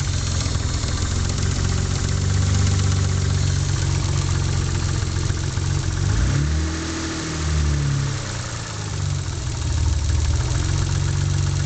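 Mitsubishi 3000GT V6 engine running at idle, revved briefly about six seconds in and dropping back to idle. The owner suspects the engine has a spun bearing.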